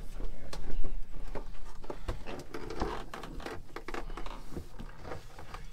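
Scattered knocks, clicks and rustling as a plastic oil drain bowl full of used engine oil is handled under a boat's inboard engine during an oil change.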